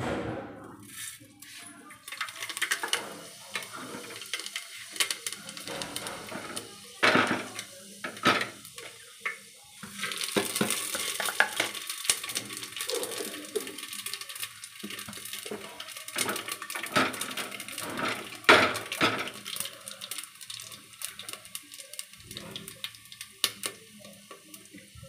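Fenugreek, whole coriander and fennel seeds sizzling in hot oil in an open pressure cooker, a steady frying hiss that swells about ten seconds in. Sharp metal clinks and knocks against the pot come every so often as the spices are stirred.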